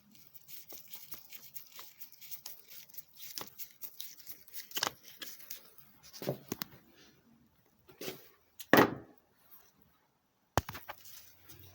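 Scattered clicks, taps and knocks of hand tools and parts being handled while working on a motorbike, with a louder clunk about nine seconds in.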